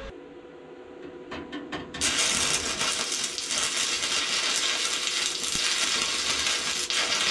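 Stick (arc) welder tacking steel: a few sharp clicks as the rod is struck, then a steady arc crackle from about two seconds in.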